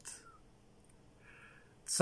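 A pause in a man's speech: quiet room tone, with a soft in-breath through the mouth a little over a second in.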